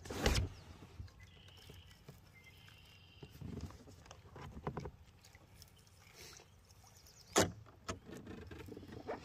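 Quiet still water with light knocks and rustles from a small plastic paddle boat being handled. A short, louder knock comes right at the start and a sharper, louder one about seven seconds in.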